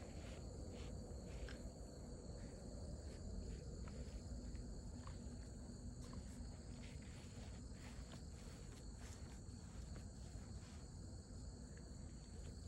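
Night insects, crickets, chirring steadily in two high-pitched bands, over a low rumble and a few faint clicks.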